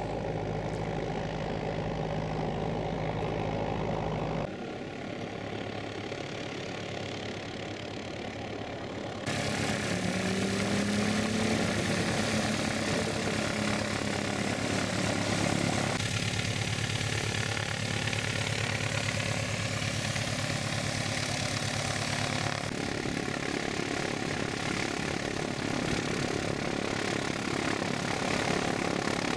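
A light aircraft's propeller engine running steadily at taxi, broken by several abrupt cuts that each change the engine sound.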